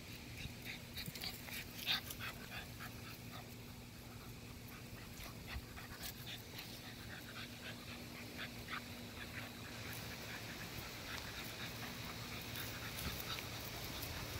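American Bully puppies whimpering and yipping in short, scattered high-pitched sounds.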